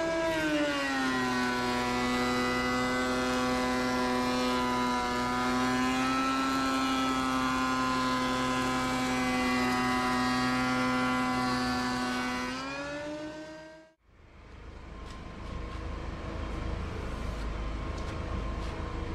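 Benchtop thickness planer's motor and cutterhead whining, dropping in pitch as a board feeds in and bogs it down, holding there while the board is planed, then speeding back up as the board comes out. The sound cuts off suddenly, and a quieter, rougher machine hum with a few light clicks follows.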